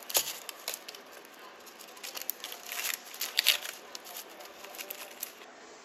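Kitchen knife sawing through a toasted bagel, its crisp crust crackling and crunching in short bursts, with the parchment paper under it crinkling.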